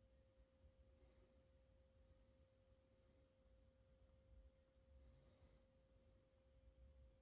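Near silence: faint room tone with a thin, steady high-pitched tone held unchanged throughout.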